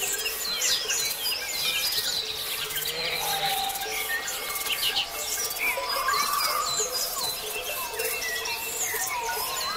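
Many songbirds chirping and singing at once in a morning chorus: short, quick whistled notes overlapping all the way through. A steady low hum lies underneath.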